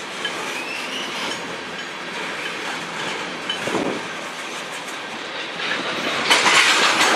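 Freight train cars rolling past on the rails, a steady clatter of wheels over the track, with a faint rising squeal about a second in and a louder rush of noise near the end.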